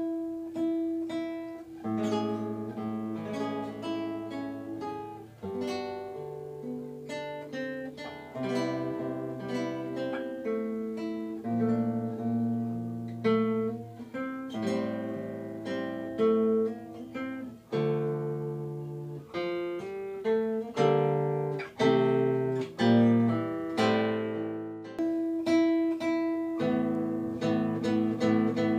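Background music on acoustic guitar: a steady run of plucked notes and chords, each ringing and fading.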